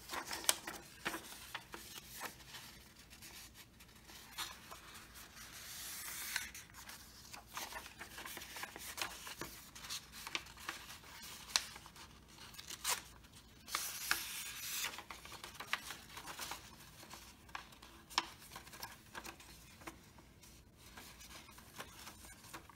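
Paper model parts being folded and creased by hand: irregular rustling and scraping with sharp little clicks, and longer rustles of paper sliding about 6 and 14 seconds in.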